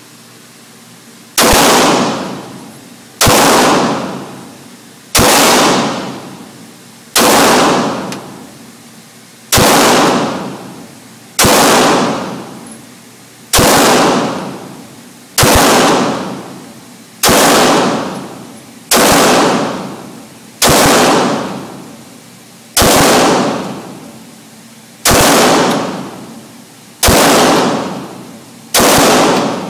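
Semi-automatic pistol fired one shot at a time at a slow, steady pace, about fifteen shots roughly two seconds apart. Each shot rings on in a long echo off the walls of an indoor shooting range.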